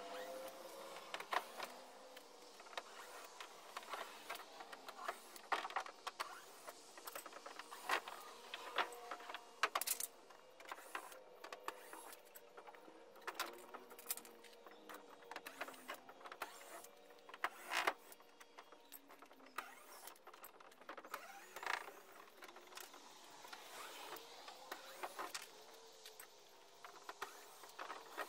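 Irregular clicks and light knocks of hand-tool work on a canoe's old wooden gunwale as the rotted gunwale is taken off.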